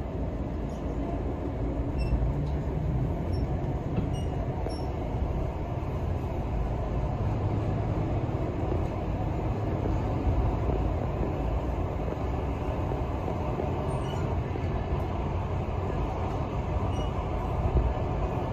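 Passenger train in motion, heard from inside the carriage: a steady, low rumble of the wheels and running gear on the track.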